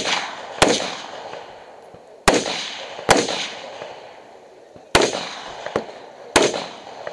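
AR-15 rifle firing five single shots at an uneven pace, each crack followed by a long echoing tail, with a couple of fainter cracks between the last two shots.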